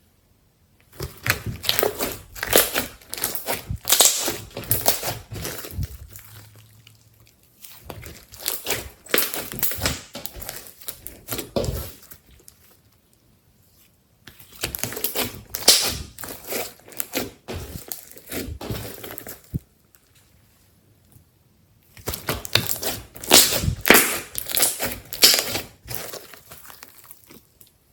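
Hands squishing and pressing glossy slime, giving dense crackling pops and clicks. The sound comes in four spells with short pauses between them.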